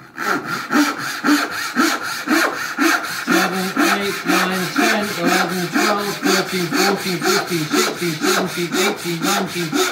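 A new fine-toothed dovetail saw (22 teeth per inch) ripping down into cherry wood with quick, even back-and-forth rasping strokes. The saw is as it came from the packet, with about twice as much set as it needs.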